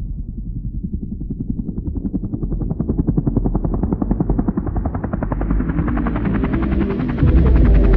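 Edited-in soundtrack build-up: a fast, even pulsing, like helicopter rotor chop, starts muffled and grows steadily brighter and louder. A deep bass with held notes comes in about seven seconds in.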